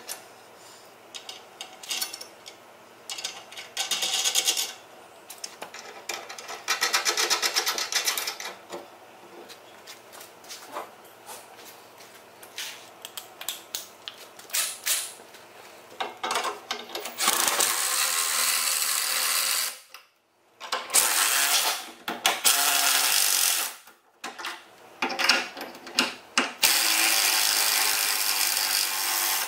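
Nuts being run onto the bolts of a steel receiver-hitch plate: a hand ratchet clicks in short spells with clinks of metal. Then a Milwaukee cordless impact driver hammers the nuts tight in three bursts of a few seconds each, each stopping suddenly.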